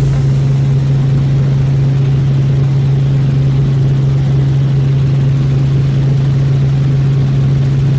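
Helicopter in flight heard from inside the cabin: a steady, loud low drone with rushing noise that does not change.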